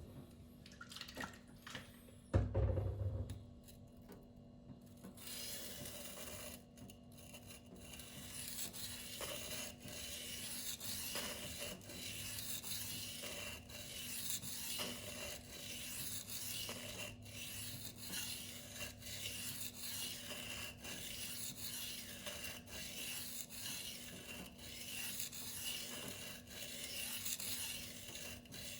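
Freehand sharpening: a Spyderco Tenacious 8Cr13MoV knife blade is stroked back and forth over a silicon carbide whetstone, making a steady scraping rasp in repeated strokes. A single knock about two seconds in comes before the strokes begin.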